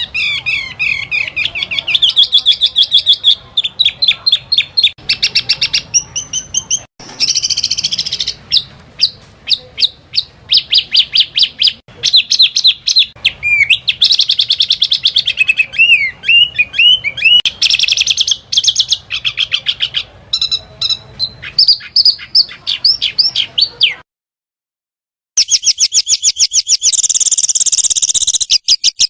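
Small songbirds singing fast, high-pitched trills and rapid runs of repeated notes: the 'tembakan' bursts of small-bird song. The song comes in spliced segments that change abruptly, with a break of about a second roughly 24 seconds in.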